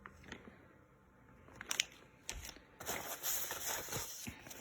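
Packaging being handled: a few light clicks, then from about three seconds in a crinkly rustle with scattered taps.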